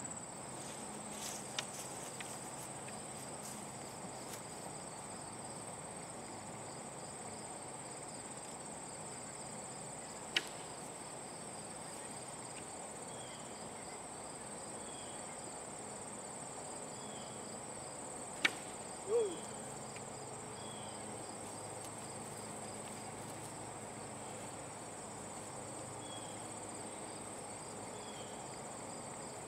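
Steady, high-pitched chorus of crickets and other insects in a summer field. Two sharp clicks cut through it about eight seconds apart, the second followed at once by a short swooping sound.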